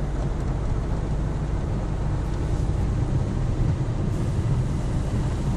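Automatic car wash heard from inside the car: water spraying and rotating brushes working against the windscreen and body, a steady rushing noise with a low rumble.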